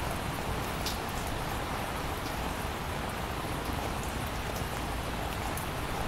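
Steady rain: an even hiss of falling rain with a few faint ticks of single drops.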